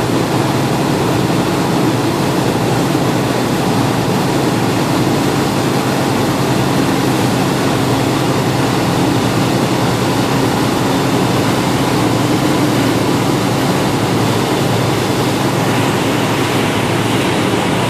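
Motorboat running at speed: a steady engine hum under the loud rush of the churning wake water and wind.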